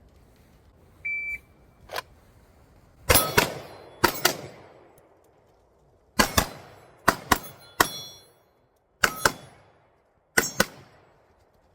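A shot timer beeps once, about a second in, then a pistol fires a string of shots in spaced groups of one to three, the hits ringing on steel targets.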